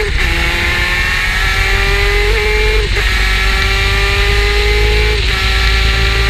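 Superkart's two-stroke engine under acceleration, its pitch climbing slowly and dropping sharply about three seconds in and again about five seconds in as it shifts up through the gears.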